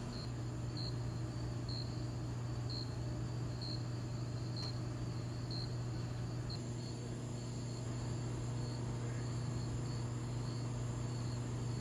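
A cricket chirping about once a second, short high chirps, over a steady low hum.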